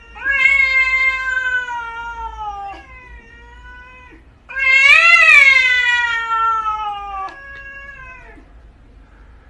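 A cat yowling in several long, drawn-out wails, each sliding slowly down in pitch. The loudest wail comes about halfway through, rising and then falling. It is the threat yowl of a cat squaring off against another cat.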